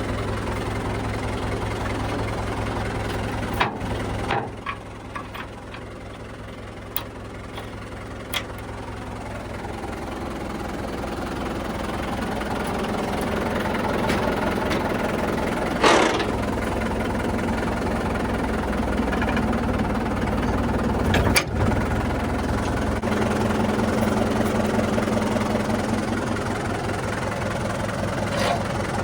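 Diesel engine of a JCB 3DX backhoe loader running steadily at work, its level climbing gradually after a dip a few seconds in. Several sharp clanks and knocks sound over it, with a brief harsh burst about halfway through.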